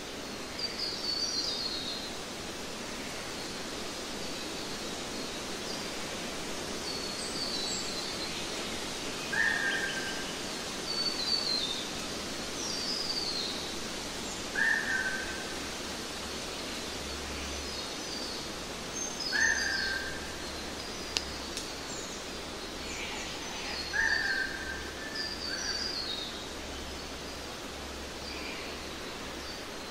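Birds calling over a steady background hiss: a short falling note repeats about every five seconds, with higher, quicker chirps in between.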